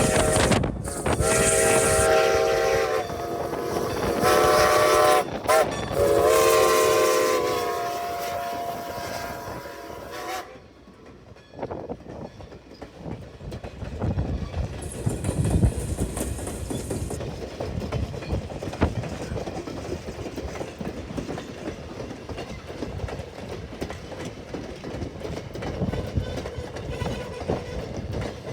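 A train whistle sounds a chord of several notes in a few blasts, the last one long, for about ten seconds. The train then rumbles past with the clickety-clack of wheels over the rail joints.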